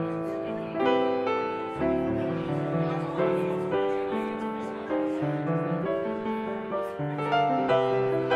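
Slow piano music, chords struck about once a second and left to ring.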